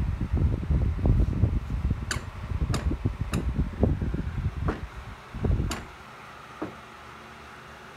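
A baby's hands tapping and knocking on plastic play-yard panels and a plastic toy piece: about five sharp clicks over an irregular rumbling rustle. The rumble stops about six seconds in, leaving a steady low hum.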